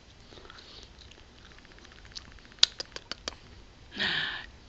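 Baby's mouth noises: a quick run of five sharp clicks, then a short breathy vocal sound about four seconds in.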